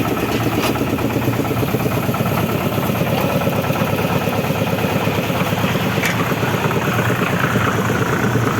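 An engine running steadily at an even speed with a rapid low throb, as of the machinery used to cast a concrete roof slab.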